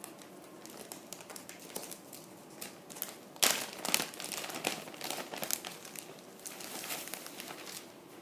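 Plastic bag wrapping a football jersey crinkling as it is handled and opened, with irregular crackles, loudest about three and a half seconds in.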